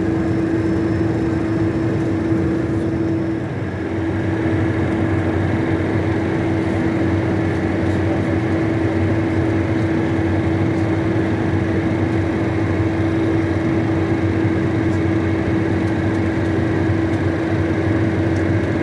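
Cockpit noise of a Cessna Citation twin-turbofan business jet in flight: a steady drone of engines and airflow with one held, even tone running through it, dipping slightly for a moment about three and a half seconds in.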